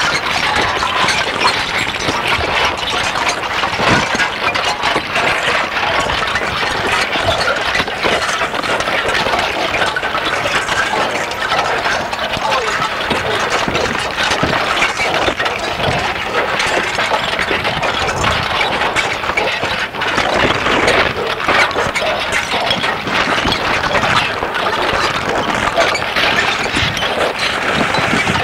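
Experimental harsh-noise / musique concrète recording: a dense, churning mass of noise crowded with small clicks and crackles, holding a steady level without pauses.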